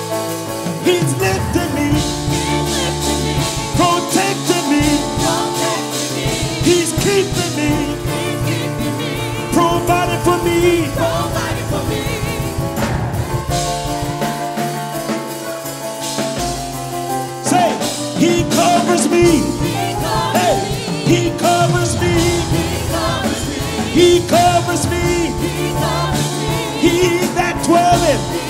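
Live gospel praise music: a worship team singing into microphones over a Yamaha Motif keyboard and a drum kit. The bass and drums thin out briefly about halfway, then come back in.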